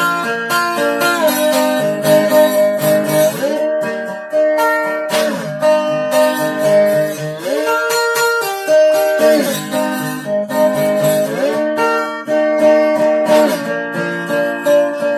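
Gretsch square-neck resonator guitar in open G tuning, played lap-style with a steel bar: picked notes and chords ringing, with several slides gliding up and down in pitch.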